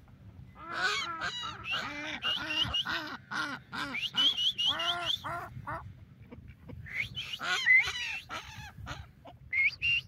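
A flock of domestic ducks quacking, many short calls overlapping in quick runs, with a lull about six seconds in before the calling picks up again.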